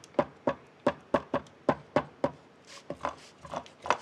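A plastic eraser rubbing quickly back and forth on drawing paper, about three to four short scrubbing strokes a second, lifting the pencil underdrawing off an inked manga page.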